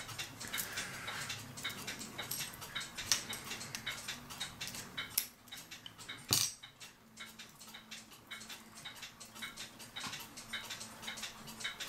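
Brass chain being fed over the chain wheel of an eight-day cuckoo clock movement as the movement is turned by hand: rapid light metallic clicks and link clinking, with one louder metallic clatter about six seconds in.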